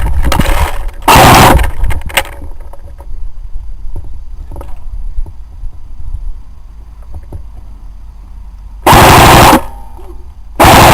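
Short bursts of automatic airsoft gunfire close to the microphone: one about a second in and two more near the end, each loud enough to overload the microphone.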